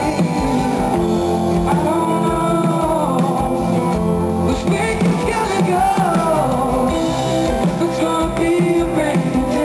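Live band playing a pop-rock song, with a male lead voice singing over guitar, bass and drums.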